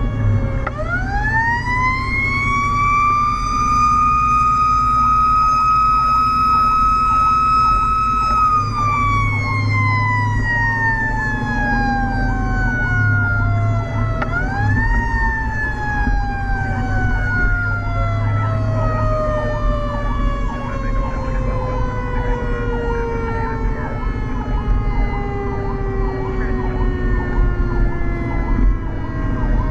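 Fire engine siren heard from inside the cab. It winds up to a high wail, holds, and coasts slowly down. It is wound up again about halfway and then winds down through the rest. A second siren tone cycles quickly up and down underneath from a few seconds in, over the truck's low engine rumble.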